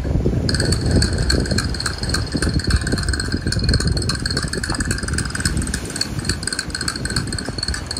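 Wind buffeting the microphone in a constant low rumble, with light metallic clinking and jingling throughout.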